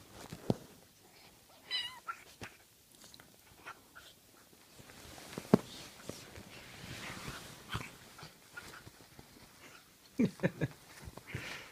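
Kitten at play, with scattered knocks and taps of scuffling and a short wavering mew about two seconds in.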